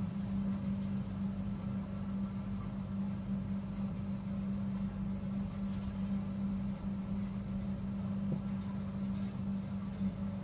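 A steady low hum with a few faint, light ticks.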